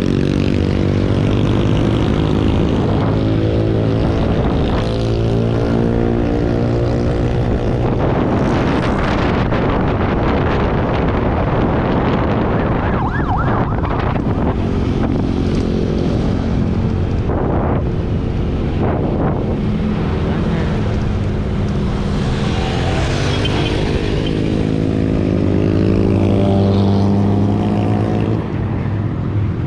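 Motor vehicle engines in street traffic idling and revving, their pitch shifting up and down, with a rising rev near the end.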